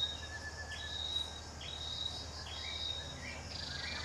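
Outdoor wildlife ambience: a high-pitched chirping call repeats about once a second over a faint steady low hum.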